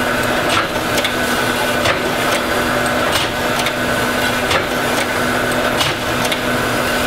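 Surface grinder running, its abrasive wheel grinding a heat-treated steel knife blank as the table travels back and forth: a steady motor hum with short rasping hits about every half second. The wheel is catching only the high spots, because the blank has warped slightly in heat treat and is bumpy, not yet flat.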